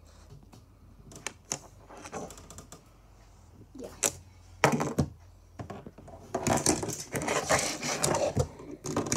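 Plastic Lego minifigures clicking and clattering on a hard tabletop as they are handled and knocked over. A few separate clicks come first, then a busy stretch of rattling past the middle.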